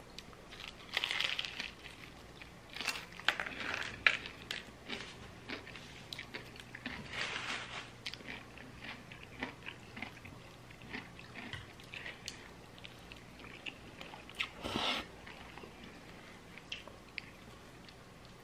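Close-miked crunching and chewing of crispy fried chicken breading, in irregular crunches that are loudest in the first few seconds.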